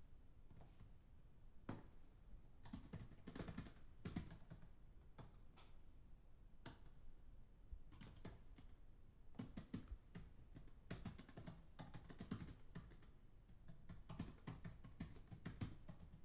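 Fast typing on a computer keyboard, heard from a distance: quick runs of faint key clicks broken by short pauses.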